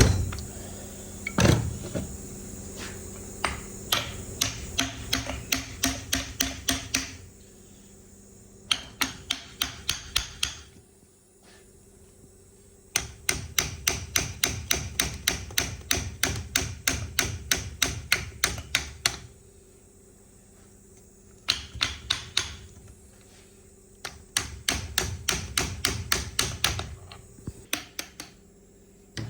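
Hammer blows on the steering column of a MAN truck during its teardown: rapid, even strikes of about three a second, in several runs of a few seconds each with short pauses between them.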